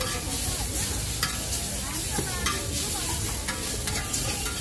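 Noodles sizzling in a hot wok while a metal spatula stirs and tosses them, its edge scraping and clinking against the pan a few times.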